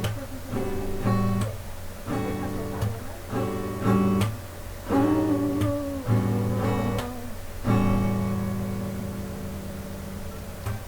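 Acoustic guitar playing plucked and strummed chords about once a second, with a longer chord near the end that fades.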